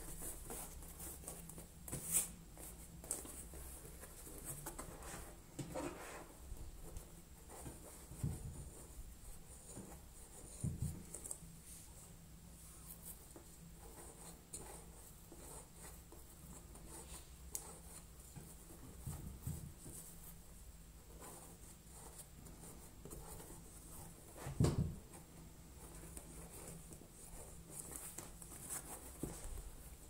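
Hands handling a leather stuffed toy and poking fibre filling into it with a thin stick: faint rustling and scratching, with a few dull thumps as the toy is pressed and set down.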